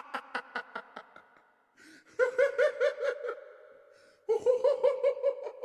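High-pitched laughter of a tickled werebeast voice: rapid giggling pulses, about six a second, in three bursts. The first burst trails off, and a quick in-breath comes before each of the later two.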